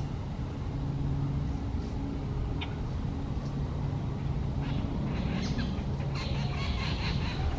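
A group of jungle babblers calling in scattered short notes, breaking into a dense burst of chattering about five seconds in, over a steady low mechanical hum.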